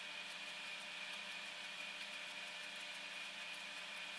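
Faint soft ticks, about three a second, as a pair of hand-held wool combs are stroked through wool, over a steady low hiss and hum.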